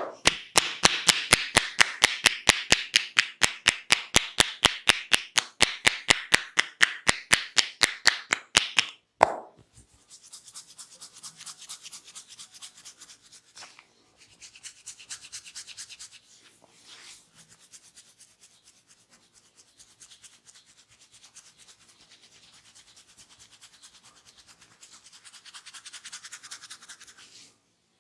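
Hands massaging the head: fast rhythmic strokes for about nine seconds, about five sharp clicks a second over a rubbing hiss. They stop suddenly, and softer, quieter rubbing follows.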